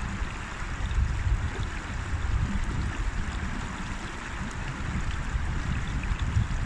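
River water rushing steadily, an even hiss of flowing water over a deep, fluctuating low rumble.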